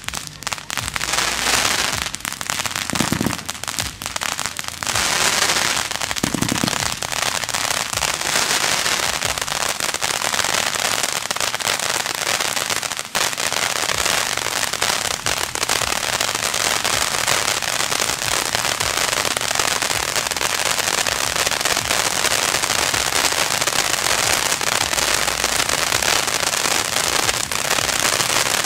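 Firework ground fountains burning with a steady spraying hiss and crackle. In the first six seconds several sharp pops and a few dull thumps come from the coloured comets fired above them.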